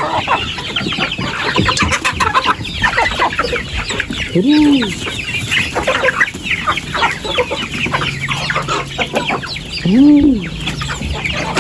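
A flock of chickens clucking and calling, with a dense run of short high peeps and two longer calls that rise and fall, about four and a half seconds in and again near ten seconds.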